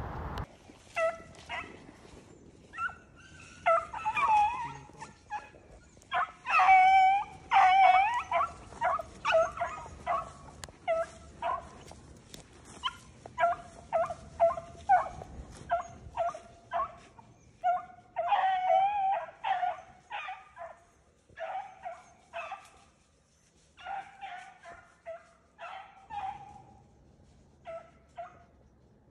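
A pack of beagles giving voice on a rabbit's trail: a string of short yelps mixed with drawn-out bawls, several hounds overlapping at times.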